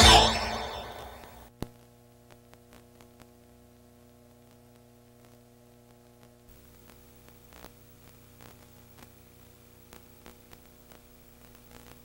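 The tail of the closing theme music dies away within the first second and a half, then a click. After that only a steady electrical mains hum remains, with tape hiss and scattered faint crackles from a VHS tape transfer.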